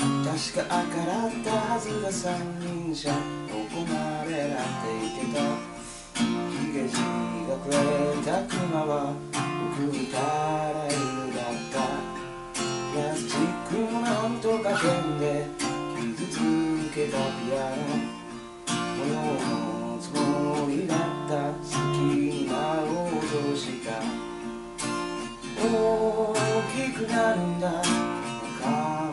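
Acoustic guitar strummed and picked, playing a song steadily throughout.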